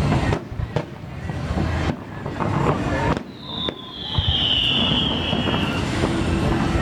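Aerial fireworks bursting with several sharp booms, and a long high whistle that falls slightly in pitch over about two and a half seconds in the middle. Crowd voices murmur underneath.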